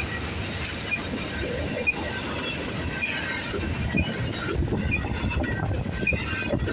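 Long BNSF intermodal freight train rolling past, its wheels clattering on the rails in a steady rumble. Short high-pitched wheel squeaks come through about once a second.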